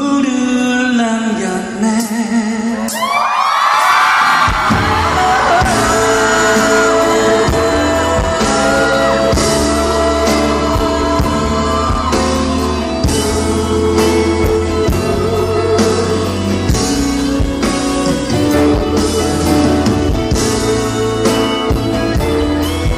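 Live pop song heard from the audience through a concert hall PA: a male singer holds a note, fans scream about three seconds in, and the full band with drums and bass then comes in and plays on under the vocals.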